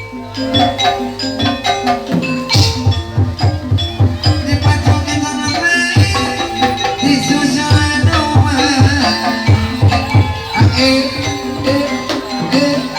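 Gamelan accompaniment for a kuda lumping trance dance: fast, steady hand-drumming under ringing metallophone tones.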